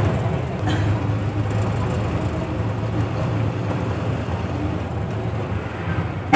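Steady low drone of a moving bus's engine and road noise, heard from inside the cabin. A vehicle horn starts right at the end.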